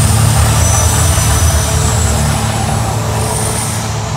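Mirage volcano eruption: gas flame jets firing, a hissing rush of fire over a deep, steady rumble from the recorded eruption sounds played through the show's sound system. The sound eases slightly near the end as the flames die down.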